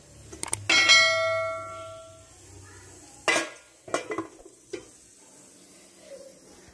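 Steel kitchen utensils clattering during cooking: a couple of light clicks, then a clang as a metal vessel rings out about a second in and dies away over a second or so. Several sharper knocks and clinks follow.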